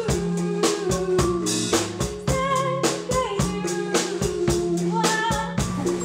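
Live band music: a drum kit keeping a steady beat, about three to four strokes a second, under a melody line that slides and wavers in pitch.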